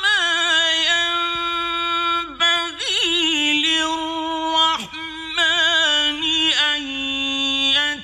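A man's solo voice reciting the Quran in melodic tajweed (mujawwad) style, holding long notes drawn out with a quavering, ornamented pitch. It breaks off briefly twice and fades away at the end.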